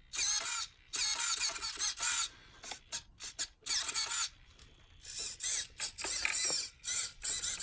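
Small RC car servos whirring in repeated short bursts, their gears whining as the transmitter sticks are worked to test that the freshly powered radio works.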